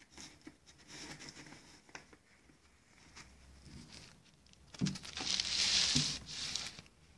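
Handling noise as a vinyl LP is drawn out of its cardboard sleeve: faint rustles and light knocks, then a louder scraping rustle of paper and card with two knocks, starting about five seconds in and lasting nearly two seconds.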